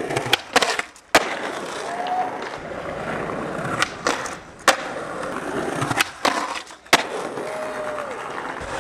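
Skateboard wheels rolling over paved stone, broken by several sharp wooden clacks of the board popping, striking a stone ledge and landing.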